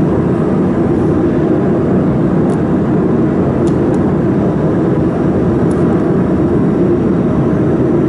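Steady machine whir of a running laser mould welding machine and its equipment, with a few faint light clicks.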